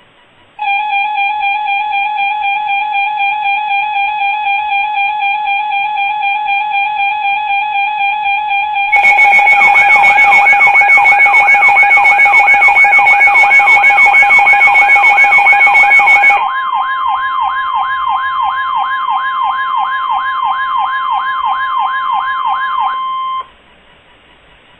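Electronic emergency alert tones. A steady alarm tone sounds for about eight seconds. Then a much louder section adds a fast, repeating siren-like sweep of about three rises a second, with hiss, over the tone. After about sixteen seconds the sweeps continue over a steady higher tone until everything cuts off suddenly.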